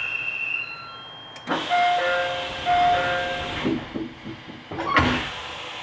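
Commuter train doors closing at a station stop: a pneumatic air hiss with a two-note chime sounding twice, a few knocks, then a sharp thud as the doors shut about five seconds in.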